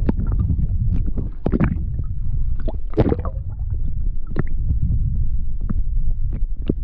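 Muffled underwater rumble of water moving around a submerged action camera, with scattered short knocks and clicks.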